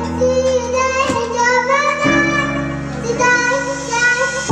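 A young girl singing into a handheld microphone over recorded backing music with a steady bass.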